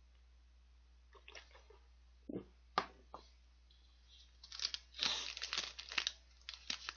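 Crinkling and tearing of the plastic wrapper on a Lotte Custard green tea latte cake as it is opened, starting about halfway through. A couple of light knocks come a few seconds before it.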